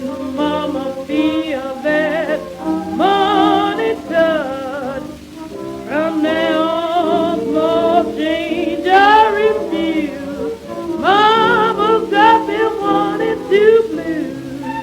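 1926 acoustic-era jazz-blues band recording played from a 78 rpm record: a lead line with wide vibrato over held accompaniment notes, thin and with no top end.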